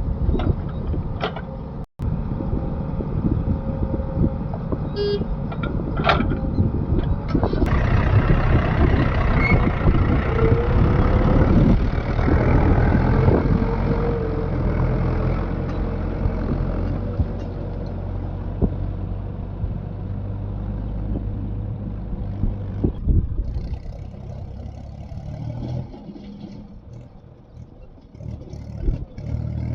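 Diesel engines of a backhoe loader and tractors running at a mud-loading job, with scattered clanks and clatter. The noise swells for several seconds near the middle and drops quieter in the last few seconds.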